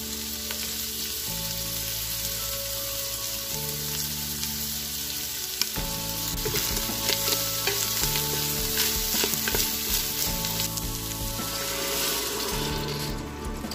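Chicken and carrots sizzling in a hot stainless-steel soup pot, with light clicks and taps in the middle as seasoning is shaken in. The sizzle drops away near the end, when broth goes in. Soft background music with held notes plays underneath.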